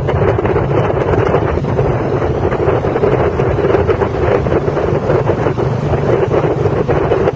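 Heavy wind buffeting on the microphone from riding pillion on a moving motorcycle, with the motorcycles' engines running steadily underneath.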